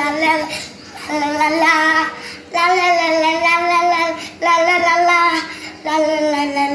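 A young boy singing a Tamil children's song unaccompanied, in about five short phrases of held notes with brief breaks for breath between them.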